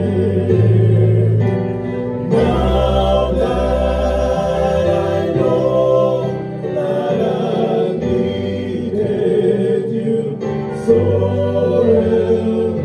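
Male gospel vocal group singing in harmony into microphones, with sustained low bass notes under the higher voices.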